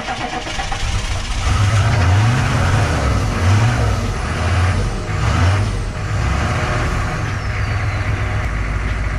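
6.5-litre turbo diesel V8 in a 1994 GM pickup cranking and catching about a second in, surging unevenly for a few seconds, then settling to a steadier idle. It is a restart after a fuel filter change, with air possibly still in the fuel system. A faint whistle falls in pitch midway.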